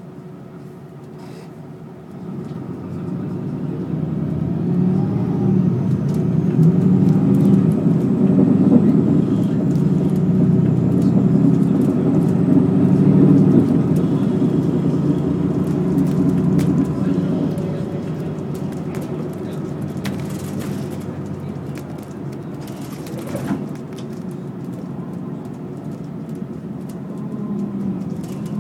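Diesel bus engine heard from inside the bus, running low at a stop, then getting much louder about two seconds in as the bus pulls away and accelerates. It stays loud for over ten seconds, then eases to a steadier, quieter run with tyre and road noise as the bus cruises.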